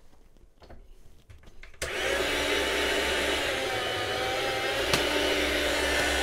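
Chef's Choice 609 electric meat slicer switched on a little under two seconds in, its motor and spinning blade then running with a steady whine that sags slightly in pitch midway as the blade cuts a slice of hard salami. Before it starts, only faint handling of the slicer carriage.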